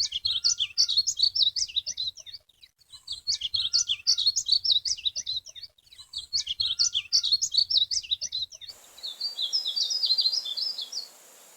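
Painted bunting singing its quick, high, warbling song: three bouts of about two and a half seconds each, then, over a steady background hiss, one shorter phrase from about nine seconds in.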